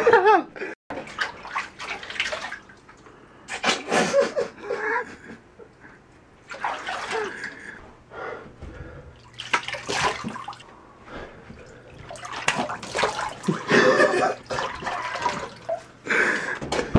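Water splashing in a full bathroom sink as a man plunges his face into the basin, in repeated bursts a few seconds apart, the last one lasting several seconds, with some voice sounds between.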